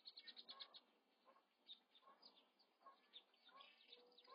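Faint high-pitched bird chirps and peeps: a quick run of short, falling chirps in the first second, then scattered single ones.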